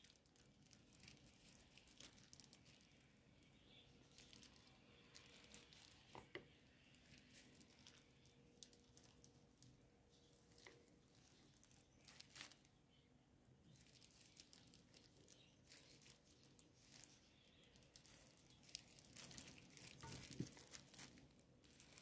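Near silence, with scattered faint crinkles and soft ticks from a thin plastic glove over the hand as hard-boiled egg slices are laid on a salad plate, a little busier near the end.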